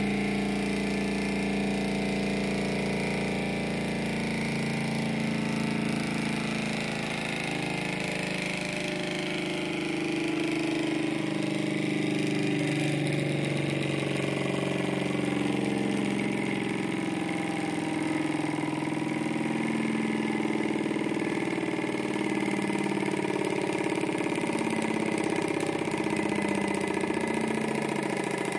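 Model alpha-type Stirling engine fired by an alcohol burner, running steadily at speed: a fast, even mechanical hum and clatter from its pistons and flywheel, the pitch shifting a little several seconds in.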